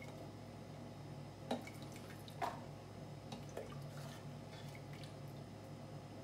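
Cooked beans and broth being ladled from a pot into a plastic container: a few soft drips and wet plops over a steady low hum.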